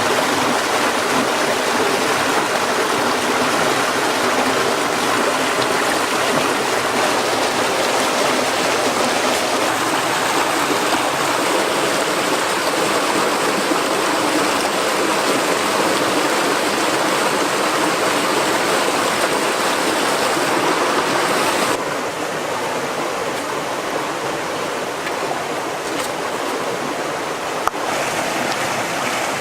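Running water of a stream, a steady rushing that drops a little in level about twenty-two seconds in, with one sharp click near the end.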